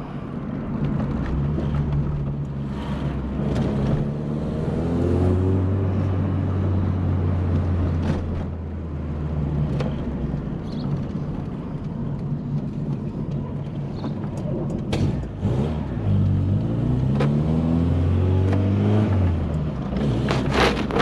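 VW Polo Coupe engine pulling under way, freshly rebuilt: the revs rise about four seconds in, settle, drop around a gear change, then rise again near the end. A few sharp clicks near the end.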